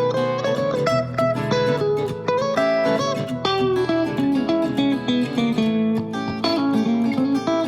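Background music: plucked guitar playing a melody with frequent note onsets and steady loudness.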